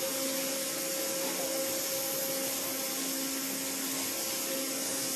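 Waterjet cutting at ultra-high pressure (90,000 psi): the jet gives a steady hiss, with a low hum underneath that comes and goes.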